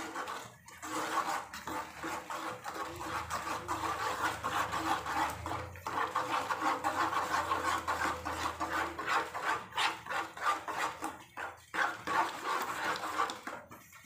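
Flat spatula stirring and scraping semolina through boiling water in a steel pot, rapid repeated rasping strokes. The semolina is stirred without pause as it is poured in, to keep it from forming lumps.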